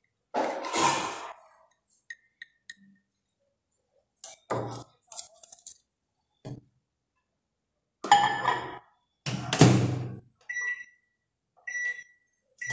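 A series of thunks and knocks as a glass bowl is handled and the microwave oven door is worked, then two short beeps from the microwave's keypad near the end as the oven is set to heat the plastisol.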